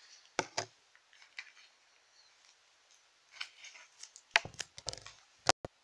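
Light plastic clicks and rattles from a hard plastic Kinder Joy capsule and its small plastic toy pieces being handled: a couple of clicks at the start, a quick cluster about four seconds in, and two sharp clicks near the end.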